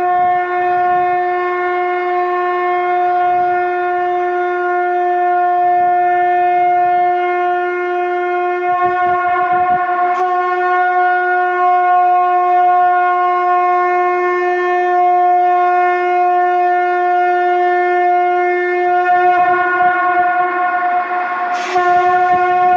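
Conch shell (shankh) blown in long, steady held blasts on one deep note rich in overtones, with a brief break about ten seconds in and the note flipping briefly upward near the end before the next blast.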